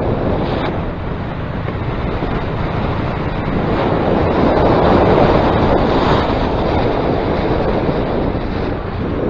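Wind buffeting the microphone, a steady loud rush that swells about midway, with no paramotor engine to be heard.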